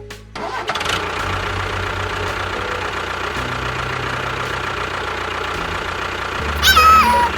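Engine running steadily at idle with a low, even knock. Near the end there is a brief, louder pitched call that falls in pitch.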